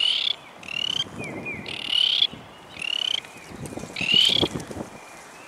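Frogs calling: short, high, rising peeps, about one a second. Light rustling in dry grass and leaves comes in near the end.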